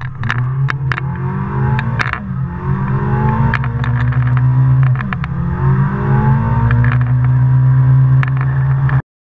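Drift car's engine heard from inside the cabin, revving up in long rising sweeps that fall back sharply about two and five seconds in, with scattered sharp clicks over the drone. The sound cuts off suddenly near the end.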